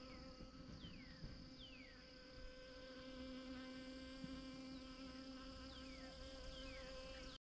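A honeybee buzzing in flight: a faint, steady hum that grows a little stronger about two seconds in.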